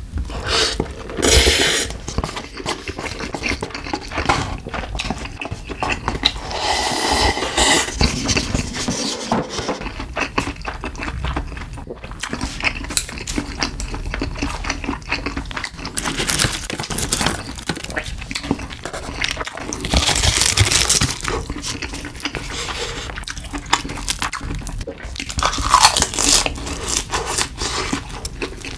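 Close-miked eating of spicy Buldak cup noodles: slurping the noodles and wet chewing, with several louder spells of slurping and mouth sounds.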